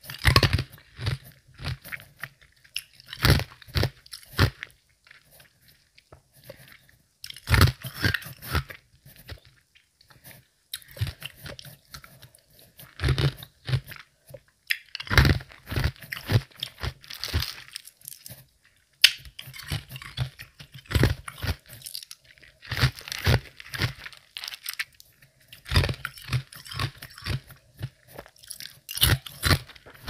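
Semi-melted ice being bitten and chewed with a medium-soft crunch, in bursts of quick crunching chews separated by short pauses.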